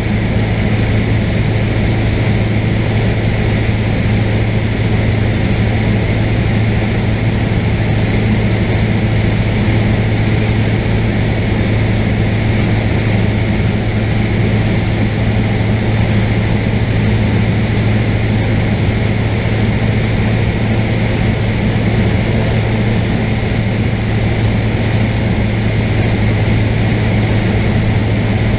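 Cessna 172's single piston engine and propeller heard from inside the cabin, a loud steady drone with a strong low hum that does not change.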